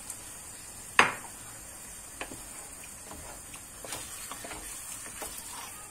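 Wooden spoon stirring a stew of fried eggplant, minced meat and tomato in a frying pan, with small taps against the pan over a faint sizzle; one sharp knock about a second in is the loudest sound.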